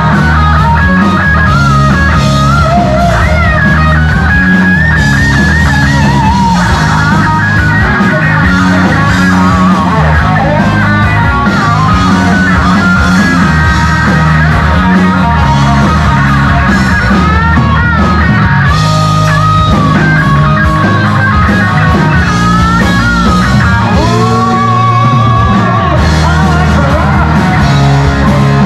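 Live rock band playing loudly, with electric guitars to the fore over bass and drums.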